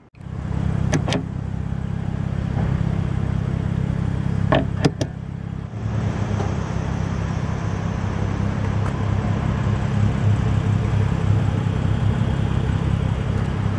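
BMW 335i's turbocharged inline-six idling steadily, a low even rumble, with a few sharp clicks in the first five seconds.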